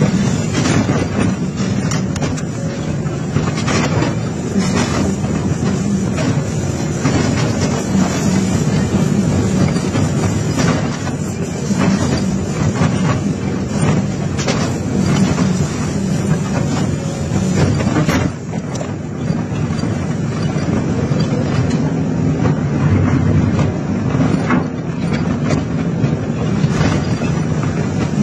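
Excavator diesel engine running steadily under hydraulic load while its scrap shear grips and tears a steel trailer frame, with repeated metal clanks, bangs and scraping of torn steel.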